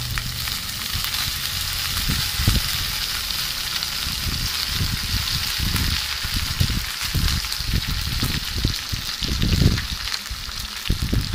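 Pieces of pork sizzling in hot oil in a pan, just added to fried onions, a steady frying hiss. Irregular dull low knocks sound underneath from about two seconds in.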